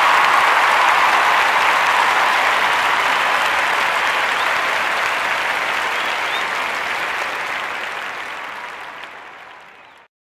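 Large crowd applauding: a dense, steady clapping that fades away gradually and stops just before the end.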